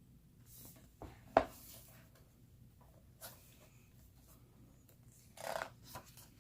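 Paper handling: photobook pages being turned, with a sharp tap about a second and a half in and a short rustle of paper near the end.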